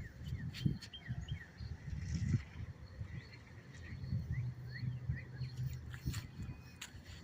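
Excavator working at a construction site some distance away: a low, uneven engine rumble that settles into a steadier drone about the middle, with a few sharp knocks. Birds chirp briefly over it.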